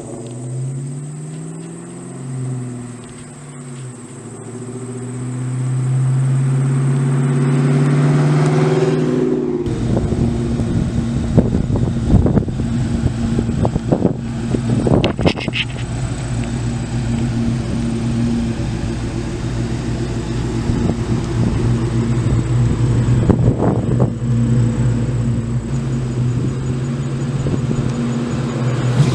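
2001 Ford Mustang Bullitt's 4.6-litre V8, breathing through an H-pipe and Jones Full Boar Deflector Two chambered mufflers, revving up and down. About ten seconds in it is held at steady high revs for a burnout, with the rough rushing noise of spinning tyres under it.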